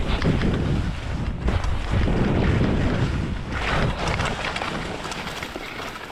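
Wind buffeting an action camera's microphone at speed, a loud low rushing that swells and eases, with a brighter hiss about halfway through.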